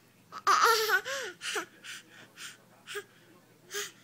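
Toddler laughing: a high, squealing laugh that rises and falls for about a second, then a string of short breathy gasps of laughter.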